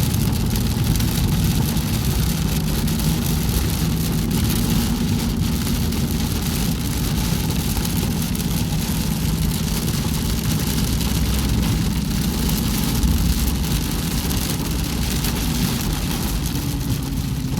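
Steady car engine and road noise heard from inside a moving car, with an even high hiss over it.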